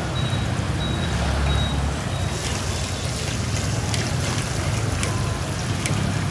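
Steady low rumble of motorbike street traffic, with plastic bags rustling and clicking from about two seconds in.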